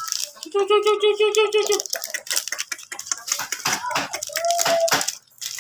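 A puppy whining in short pulses, then a brief drawn-out whine, amid quick clicks of its claws on a tiled floor.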